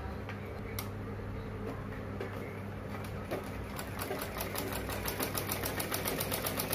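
Black Usha sewing machine stitching through layered frock cloth. After a single click about a second in, the needle mechanism starts ticking in an even rhythm that speeds up, reaching about six clicks a second near the end.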